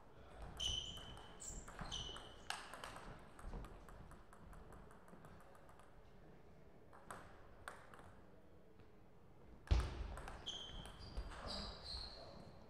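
Table tennis ball being struck by paddles and bouncing on the table in a short rally, each hit a sharp click with a high ringing ping. After a quiet stretch with a few faint ticks, a thud near the end is followed by several more pinging ball bounces.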